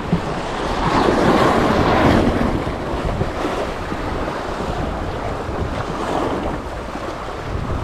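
Sea waves washing in, with wind noise on the microphone; one wave swells up about a second in and eases off after two seconds.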